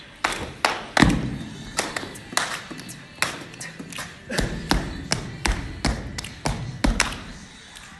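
Body percussion by a group: claps, slaps and stomps on a hard floor making a rhythm of sharp strikes, about three a second, several of them heavy and deep.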